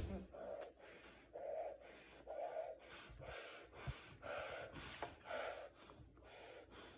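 Close-up eating sounds: thin rice noodles (pansit bihon) being slurped and chewed, in a run of about a dozen short, wet sucking and breathy mouth sounds, roughly two a second.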